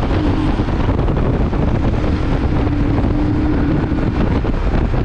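Wind buffeting the microphone of a moving motorcycle, with the bike's engine running steadily underneath at cruising speed.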